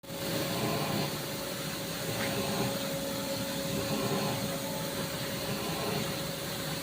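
CNC vertical machining centre running, a steady mechanical noise with a constant hum held under it.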